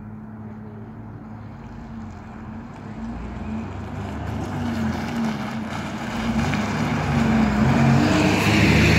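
Irisbus Crossway diesel bus pulling away from a stop and driving past close by, its engine growing steadily louder as it accelerates and approaches, loudest near the end as it passes.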